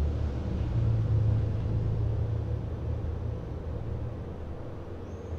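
A low steady rumble that slowly fades away, with nothing else clearly heard.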